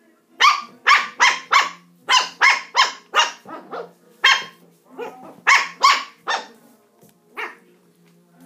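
Puppy play-barking: a run of about sixteen short, sharp yaps in quick clusters of three to six with short pauses between, then a single last yap near the end.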